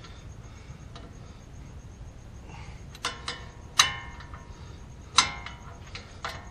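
Metal hand tools clinking against the brake hardware of a car's front wheel: a handful of sharp, ringing metallic clinks, the loudest about four and five seconds in.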